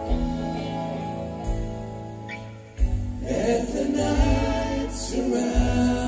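Live rock band playing a slow song: held chords for the first half, then a drum hit about three seconds in brings in the full band, with a man singing over electric guitar.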